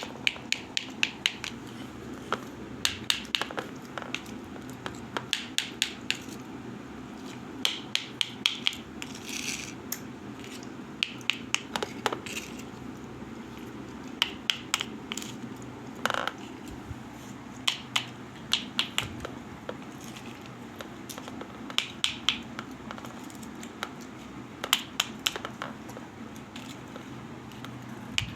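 Small utensils clicking, tapping and scraping against miniature pots and pans in short clusters every second or two, over a steady low hum.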